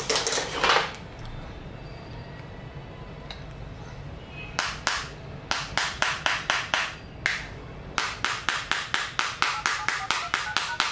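Steel spanner tip tapping on a smartphone's glass touchscreen: sharp clicks, a few spaced ones, then a quick even run of about three a second from about eight seconds in. Faint keypad tones sound under the later taps as digits are dialled. A brief rustle of handling comes at the start.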